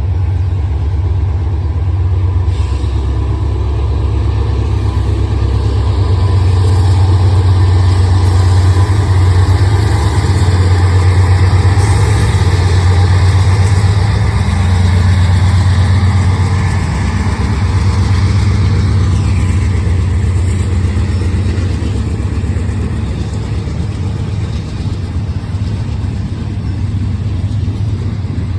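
Freight train passing behind GE AC44C6M diesel-electric locomotives: a steady, deep diesel rumble, loudest about a third of the way in and easing off later as the train rolls by.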